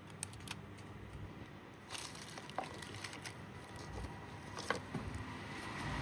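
Scattered small clicks and taps from handling an iPhone and repair tools, with a few sharper knocks about two seconds in and near the end, over a faint steady hum.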